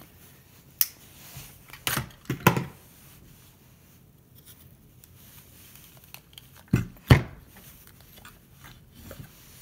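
Handling knocks and clicks as a folding knife's blade is worked into the seam of a two-piece wooden lead-sinker mold to pry the halves apart: a sharp click about a second in, a couple of knocks around two seconds, and two heavier knocks about seven seconds in.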